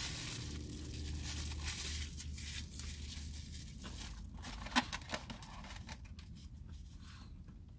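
Quiet eating sounds: takeout packaging and a plastic fork crinkling and clicking, with chewing, over a steady low hum. One sharper click comes near the five-second mark.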